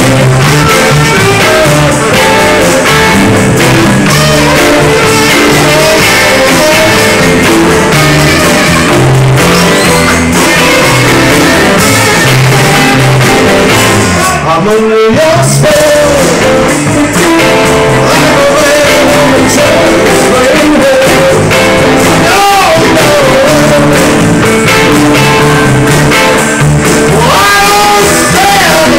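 Live blues band playing loudly: electric guitars, saxophone and drums, with a man singing at times.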